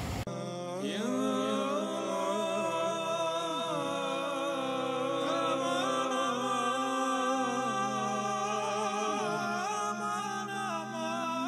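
Background music: a singing voice carrying a winding, sliding melody over steady held tones, cutting in suddenly just after the start.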